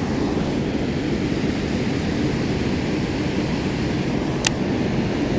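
Steady rush of water pouring through a dam spillway, with a single sharp click about four and a half seconds in.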